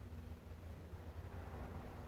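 Faint room tone: a steady low hum with a faint hiss that grows a little in the second half.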